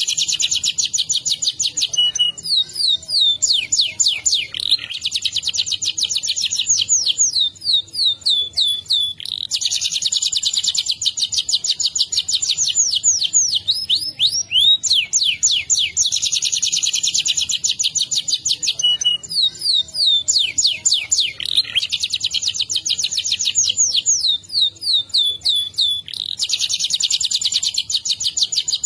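Domestic canary singing a long rolling song without pause: fast trills of rapid repeated notes alternate every few seconds with slower runs of sweeping notes.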